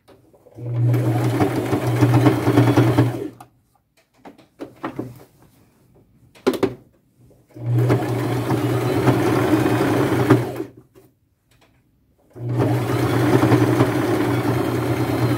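Electric sewing machine stitching a zigzag seam through lace and cotton in three runs of about three seconds each. The stops between them carry only a few faint clicks of fabric handling.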